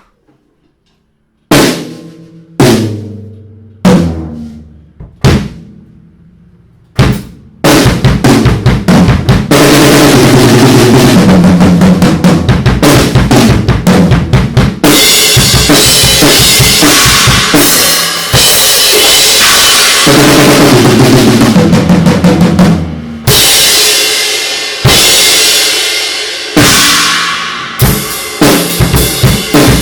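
Acoustic drum kit being sound-checked. Four single drum hits ring out one by one. Then comes fast, continuous playing across the kit with bass drum, snare and ringing cymbals, which breaks near the end into a run of heavy spaced hits with crashes.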